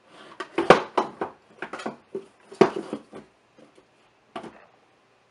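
Eyeshadow palettes being set down and shuffled into a vanity drawer: a string of clacks and knocks, the loudest about two thirds of a second and two and a half seconds in.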